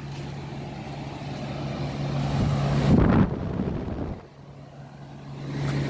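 Lennox central air-conditioner condensing unit running: a steady compressor hum under the rush of its condenser fan. The air rush swells to its loudest about three seconds in, then falls away briefly before the hum returns.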